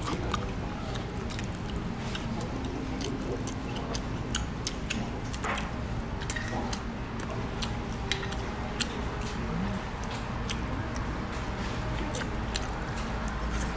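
Crisp fried food being bitten and chewed, with many scattered clicks of cutlery and dishes over a steady room hum.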